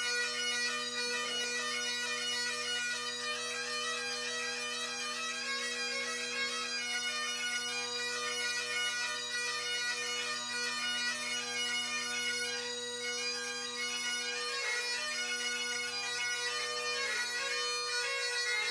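Two Great Highland bagpipes playing a tune together, the chanter melody moving over the steady hum of the drones.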